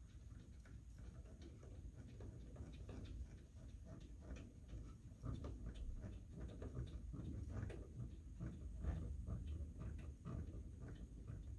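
Small nuts being threaded by hand onto the mounting posts of a UV light: a run of quick, irregular light clicks and ticks over a low handling rumble.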